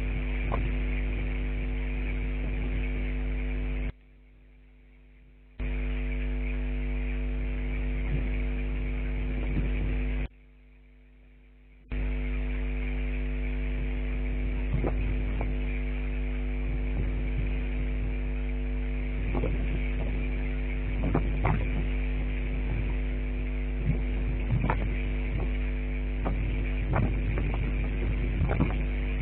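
Steady electrical hum: a low buzz with several steady tones above it. It drops out twice for a second or two, and short clicks and ticks are scattered through the second half.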